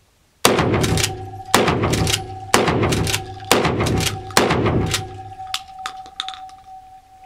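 Five gunshots fired about a second apart, each sharp crack followed by a short echo off the walls of an indoor range, then a few light clicks.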